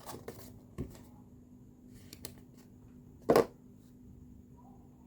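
A few scattered light clicks and taps, with one much louder, short knock about three seconds in.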